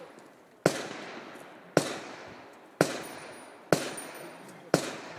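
Five gunshots from a single-action revolver, fired at a steady pace of about one a second. Each sharp crack is followed by a long echoing decay.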